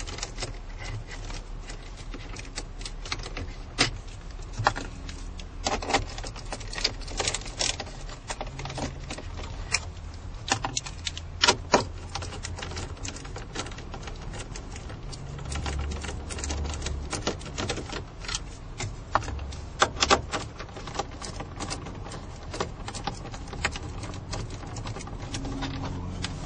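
Irregular clicks, taps and rattles of hand tools and dash parts as the radio is unfastened from a Cadillac CTS dashboard, with a low steady hum underneath.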